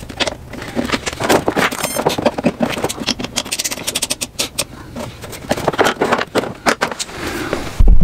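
Car battery being installed in an engine bay: a run of metallic clunks, clicks and scrapes as the battery is set in and fitted.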